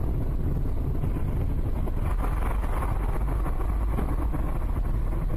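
Steady rumbling noise of a moving vehicle, heavy in the low end, with wind on the microphone.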